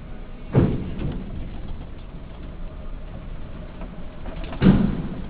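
Two heavy clunks about four seconds apart as a Hino R260 bus rolls over the steel loading ramp onto a ferry's vehicle deck, over the low rumble of the bus running.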